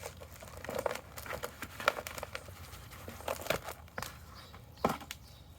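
Hands digging through soaked soil to pull out potatoes: irregular rustling and crackling with a few sharp ticks.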